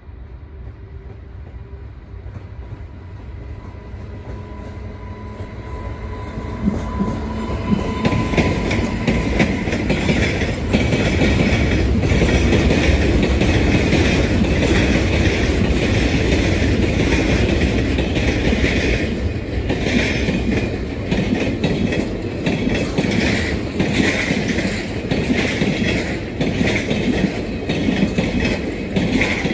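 Freight train hauled by an Sr3 (Siemens Vectron) electric locomotive approaching and passing close by. It grows louder over the first ten seconds or so, then the boxcars and container flat wagons run past with a steady rumble and a rapid clickety-clack of wheels over the rail joints.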